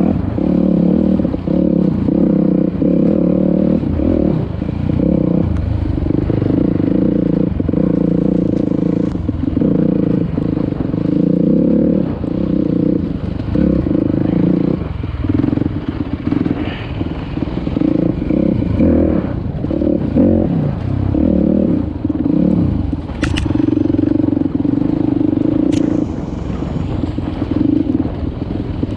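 Dirt bike engine running under load on a rough trail, its pitch rising and falling as the throttle opens and closes. Two sharp clicks come later on.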